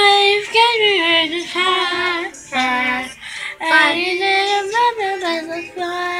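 A girl singing a song karaoke-style, holding long notes in phrases with short breaks between them.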